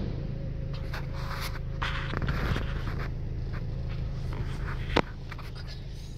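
Rollover car wash heard from inside the car: the side brush's cloth strips brushing and scraping against the bodywork in short, uneven strokes over a steady low rumble, with a faint steady whine for the first few seconds. A single sharp click about five seconds in.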